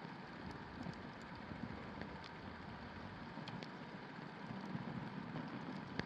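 Strong wind blowing, with a rushing rumble on the microphone, and a few faint sharp pops from a wood campfire scattered through it.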